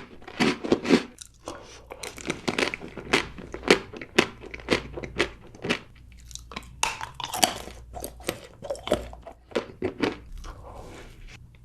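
Crunchy food being bitten and chewed, a rapid, irregular run of sharp crunches that grows sparser toward the end.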